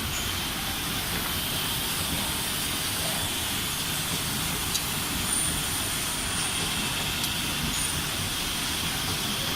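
Automatic CNC glass-bottle screen printer running: a steady mechanical hiss of machine and workshop noise, with a few faint clicks.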